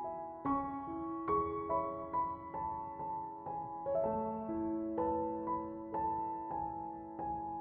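Background music: slow, gentle piano or electric piano, notes struck about every half second and left ringing.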